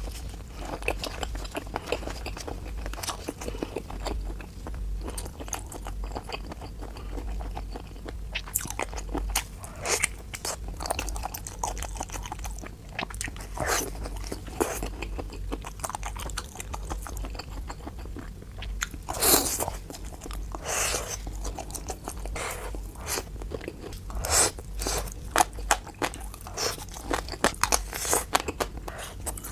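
Close-miked chewing and biting of seafood, with a steady run of small crunches and clicks and a few louder crunches in the second half.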